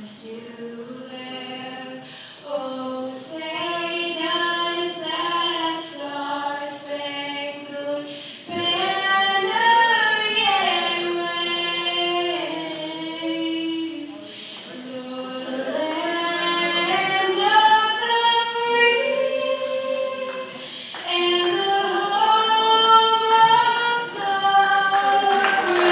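A woman's solo voice singing the national anthem a cappella, holding long notes and climbing to higher notes in the last third.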